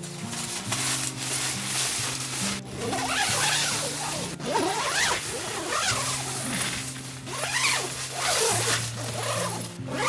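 Tent door zipper being pulled in several long strokes, its pitch sweeping up and down as it runs, over soft background music.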